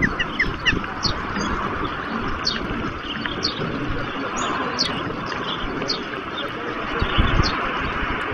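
Steady hiss of heavy rain with low gusts of wind on the microphone. Small birds chirp briefly about once a second, with a quick run of descending chirps at the start.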